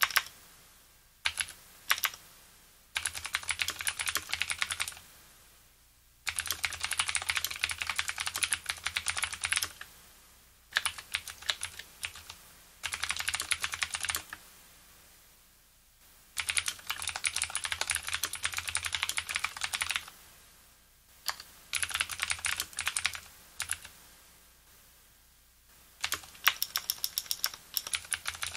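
Typing on a Leopold FC750R mechanical keyboard with Cherry MX Blue clicky switches, springs lubricated: a rapid clatter of sharp key clicks in runs of two to four seconds, broken by short pauses.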